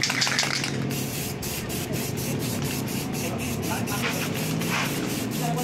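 Aerosol spray-paint can hissing, with a steady low hum underneath.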